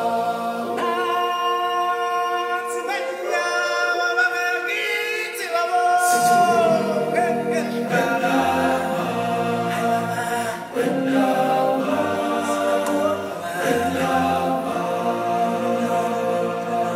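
Live stage-show music with singing. For the first six seconds a high voice holds long notes over sustained accompaniment with no bass. Then the deeper part of the music comes in and the singing fills out.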